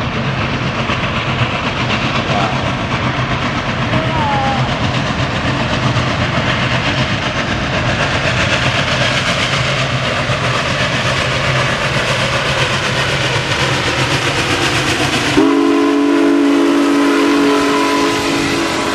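Union Pacific Big Boy 4014, a 4-8-8-4 articulated steam locomotive, working upgrade past at close range with a heavy, continuous rumble. About fifteen seconds in, a long several-note steam whistle starts suddenly and is held to the end.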